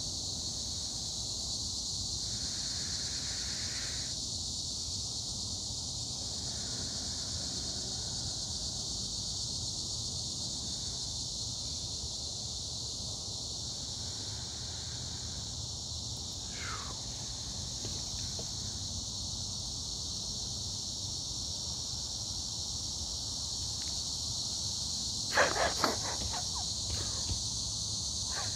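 Insects singing in a steady, high, continuous chorus. A short falling whistle sounds a bit past halfway, and a few sharp knocks and rustles come near the end.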